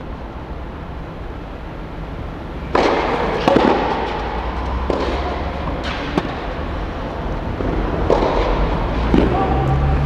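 A tennis ball struck back and forth with rackets in a clay-court rally: a run of sharp, echoing pops about a second apart, starting about three seconds in and stopping near the end. The hits ring on under a large indoor tennis dome.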